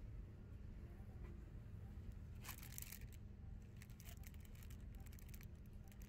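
Faint low hum, with a brief rustle about two and a half seconds in and a few light clicks after it.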